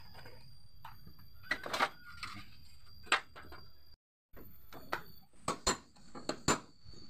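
Hand tools clicking and knocking against a car's metal bumper and plastic fender trim as fasteners are undone and panels pulled loose: scattered sharp clicks, then a quick run of louder knocks near the end.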